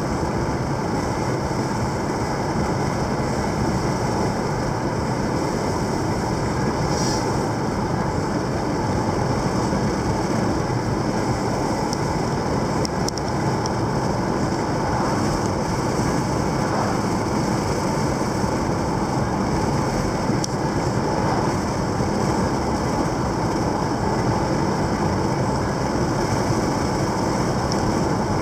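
Steady road noise inside a moving car: tyres on asphalt and the engine running at cruising speed, an even rumble and hiss.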